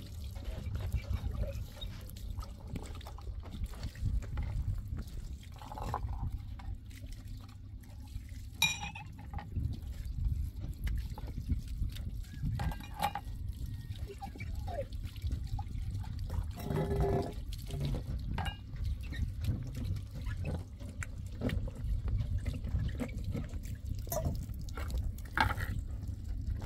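Dishes and glasses being washed by hand: water pouring and splashing, with glasses clinking now and then, over a steady low rumble.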